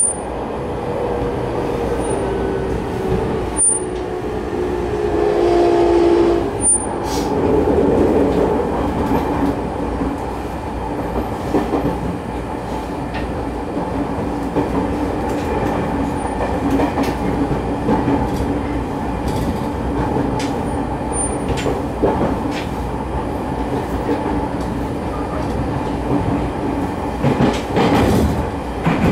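Running sound of a JR 209 series 3100 electric train heard from inside the car: GTO-VVVF inverter and MT73 traction motor tones over steady wheel and rail noise. Over the first few seconds the tones fall slightly in pitch, then settle into a steady hum, with occasional rail-joint clicks that bunch up near the end.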